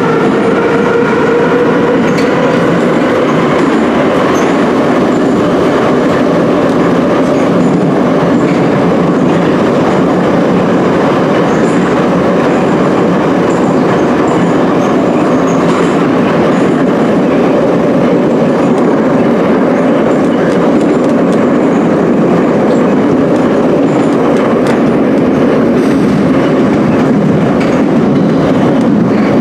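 Ezh3/Em-type Soviet metro train running through a tunnel, heard from inside the car. The traction motors' whine rises in pitch over the first few seconds, then gives way to a loud, steady rumble of wheels on the rails.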